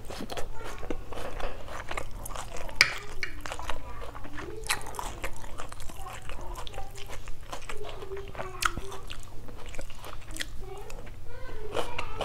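Close-miked chewing and biting of shredded chicken salad with sliced raw onion: wet mouth clicks and crunches, irregular throughout.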